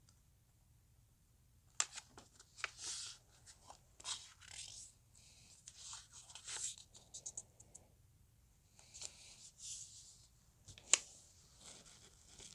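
A sheet of origami paper being folded and creased by hand on a tabletop: short bursts of paper rustling and crinkling with scattered clicks, starting about two seconds in, and one sharper click near the end.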